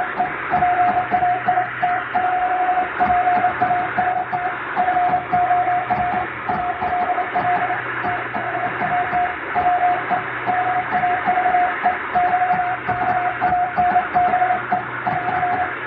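Morse code sent as a keyed mid-pitched beep, a steady run of dots and dashes, heard through hiss and a low hum. The noise and fading are added to imitate shortwave radio reception.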